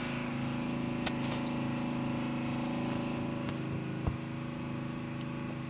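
A generator's engine running with a steady hum. A few light clicks and a knock about four seconds in, as the phone is handled.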